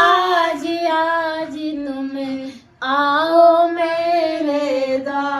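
A high solo voice singing a Hindi devotional bhajan in long held notes, with a short break for breath about two and a half seconds in before the singing resumes.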